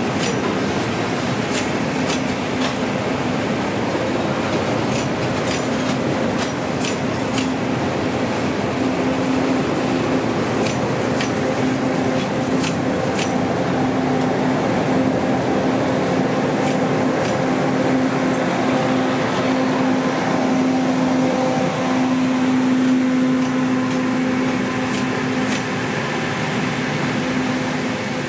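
Passenger coaches of a departing metre-gauge sleeper train rolling slowly past, their wheels clicking irregularly over the rail joints, over a steady hum.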